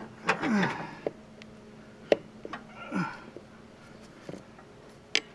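Tire irons clicking and knocking against the steel rim as the bead of a garden tractor rear tire is pried over the rim's hump. Two short squeaks drop in pitch, one near the start and one about three seconds in.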